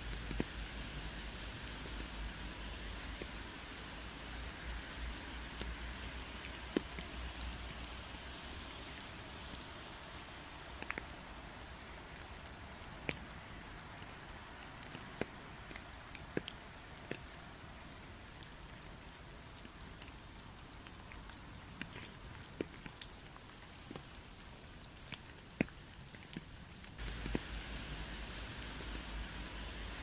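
Steady rain falling, an even hiss with individual drops ticking sharply on a surface. A faint low rumble runs underneath at the start and again near the end.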